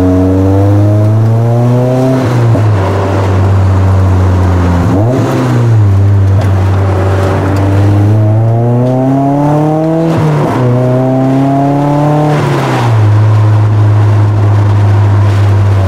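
NC Mazda Miata's 2.0-litre four-cylinder engine pulling under acceleration, heard from inside the cabin. Its pitch climbs and then drops abruptly at each gear change through the 6-speed manual, a few times over.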